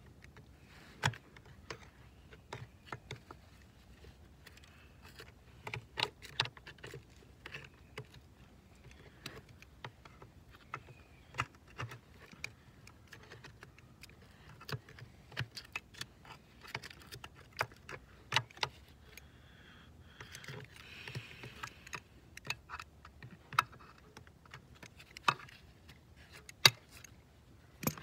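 Scattered sharp metal clicks and knocks, irregular and a second or two apart, of hand tools and gloved hands working against the steel track frame and final drive housing of a mini excavator, with a short stretch of scraping about twenty seconds in.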